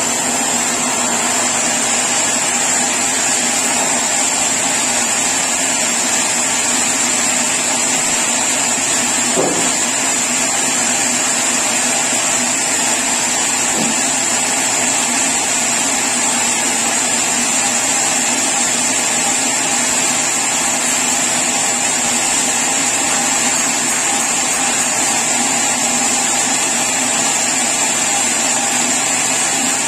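Sawmill saw running steadily, sawing mahogany, with a constant high whine over a dense mechanical noise.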